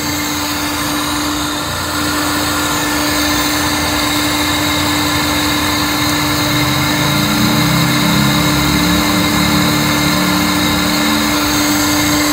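Peugeot 406 engine idling with its electric radiator cooling fan whirring: a steady mechanical hum with one constant tone, growing a little louder about two seconds in.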